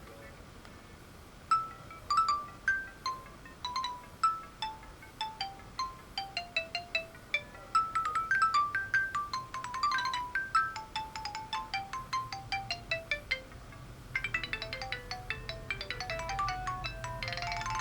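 Sony Ericsson Z200 mobile phone playing a ringtone: an electronic melody of short, clear notes starts about a second and a half in, and the tune changes to quicker, busier notes near the end.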